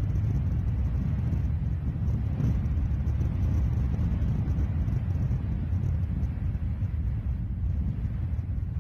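Strong wind buffeting the microphone: a loud, steady low rumble with no breaks.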